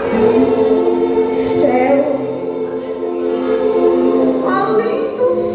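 Gospel vocal group singing in harmony, several voices holding long sustained notes together as a chord.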